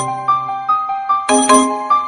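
A smartphone ringtone playing: a melody of short high notes, with a fuller chord struck a little over a second in, part of a phrase that repeats.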